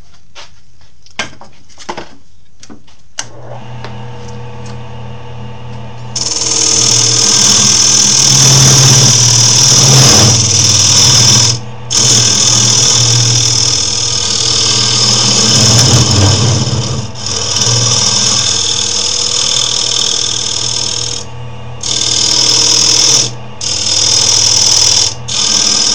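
A few clicks, then a wood lathe's motor hums steadily from about three seconds in. From about six seconds a turning tool cuts into the spinning wood with a loud, hissing scrape in long passes, lifted off briefly several times to check the cut.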